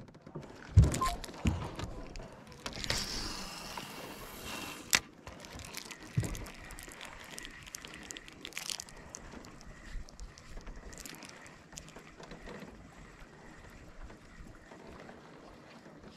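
A few hollow knocks and thumps of handling gear in a small aluminium boat, then a couple of seconds of hiss ending in a click, then faint quiet background.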